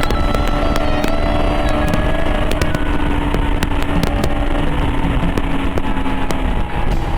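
KTM 390 Adventure's single-cylinder engine running at steady speed under heavy wind rush on the microphone. The engine note drops briefly near the end.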